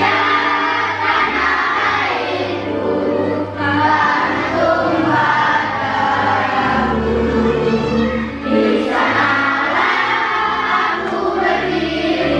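Music with a choir of voices singing over steady bass notes.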